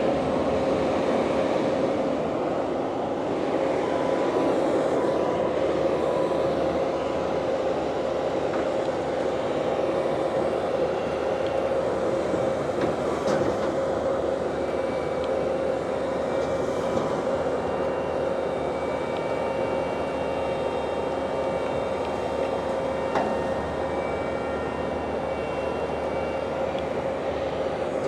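Engine of a winch rig, throttled up just before and then running steadily at high revs, with a steady whine, to power the winch.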